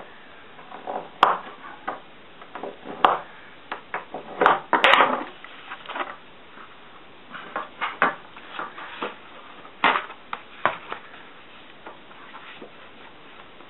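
Corex corrugated plastic sheet being creased and folded by hand along a steel rule: irregular sharp clicks and crackles as the sheet bends, with a dense run of them about four to five seconds in.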